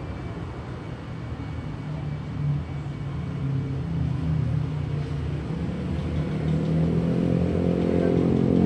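Street traffic, with a motor vehicle's engine hum drawing closer and growing steadily louder over the last few seconds.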